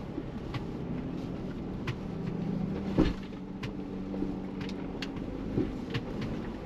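Ford Bronco driving slowly off-road: the engine runs with a steady low drone, with scattered clicks and knocks and one louder thump about three seconds in.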